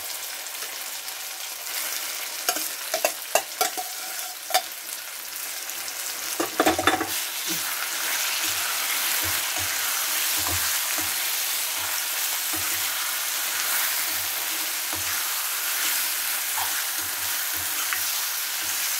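Raw mango chutney frying in a kadai after water is poured in, sizzling, with a steel ladle clinking against the pan a few times in the first five seconds as it is stirred. From about seven seconds in the sizzle settles into a steady hiss.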